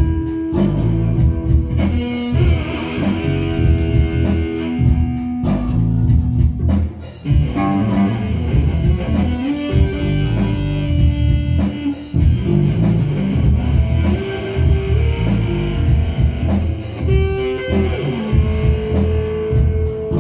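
An electric guitar and a bass guitar playing a rock riff together, with notes held for a second or more over a heavy low end.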